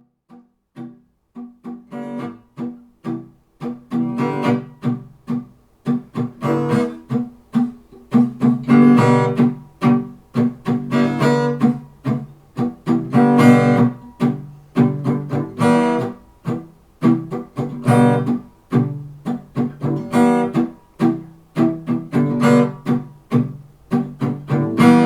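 Acoustic guitar playing an instrumental song intro: a run of separately plucked notes and chords, starting softly about a second in and growing louder over the first several seconds.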